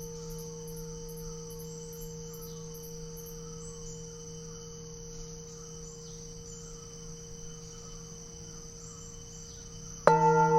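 Himalayan singing bowl ringing on with a low, steady hum and overtones, slowly fading, with crickets chirping steadily behind it. Near the end the bowl is struck again: a sudden loud ring with several wavering, beating tones.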